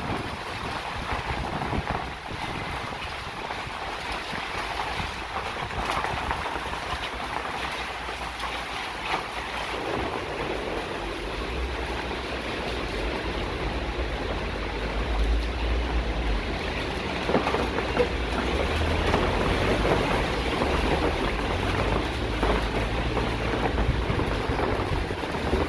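Hail and rain falling steadily: a dense hiss of many small hits. A low rumble comes in about halfway through and grows louder.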